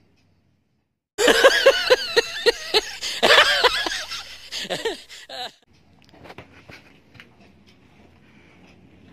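A laughter sound effect: a loud, rapid run of ha-ha pulses that starts about a second in and lasts about four seconds. Faint rustling and small clicks follow.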